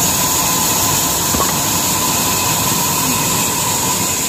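Large electric wood-cutting band saw running without cutting, its motor and belt drive giving a steady hum with a thin whine over it.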